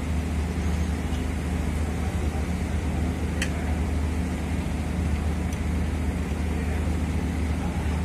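Steady low drone of running machinery, with one small sharp click about three and a half seconds in.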